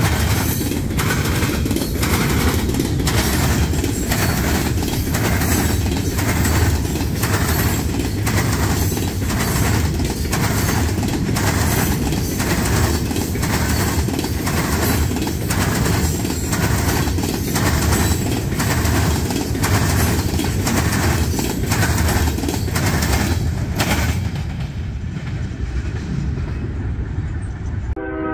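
Freight cars of a CSX train rolling past close by: a steady heavy rumble with the wheels clicking over rail joints in an even rhythm, roughly two clicks a second. Near the end the sound turns duller and quieter.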